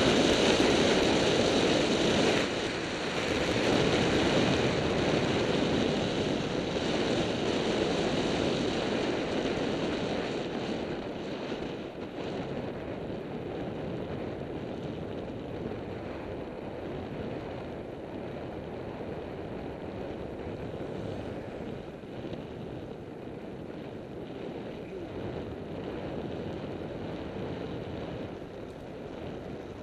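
Wind rushing over the microphone of a camera riding on a bicycle at speed. It is loudest over the first ten seconds, then eases off and stays lower, as the bike slows.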